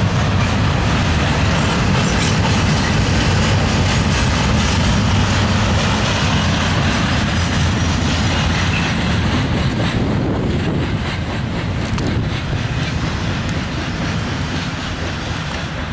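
Double-stack intermodal freight cars rolling past, their steel wheels rumbling and clattering over the rails. The sound eases off slightly in the last few seconds as the end of the train goes by.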